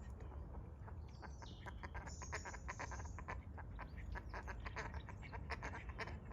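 Ducks quacking in a quick run of short calls lasting several seconds, with small birds whistling now and then and a low wind rumble under it.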